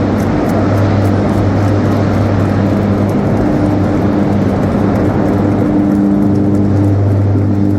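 Electric arc furnace arcing: a loud, dense crackling noise over a steady low electrical hum.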